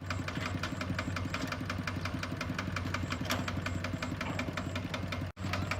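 A small engine running steadily with a regular ticking beat, about five or six a second. The sound cuts out for an instant near the end.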